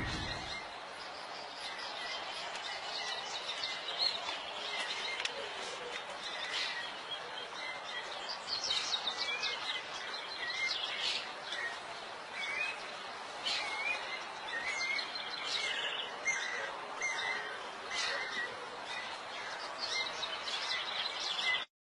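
Small birds chirping over a steady background hiss, with the chirps more frequent in the second half; the sound cuts off abruptly just before the end.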